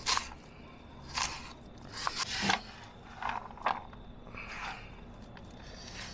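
Knife cutting through raw onion: a series of separate cuts at uneven spacing, about one a second.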